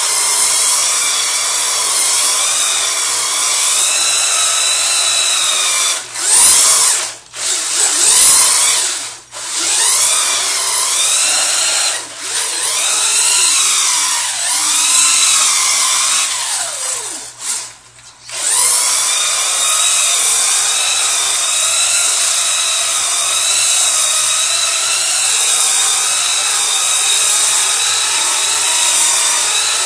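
Electric RC truck's Titan motor and drivetrain whining at high revs as it spins donuts through shallow water on pavement. The whine rises and falls and cuts out briefly several times in the first eighteen seconds, then holds steady.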